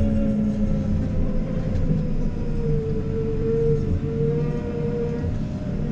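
JCB Agri Pro telehandler running as it drives, heard from inside its cab: a steady diesel hum with a thin whine over it that drops a little in pitch and grows louder a few seconds in.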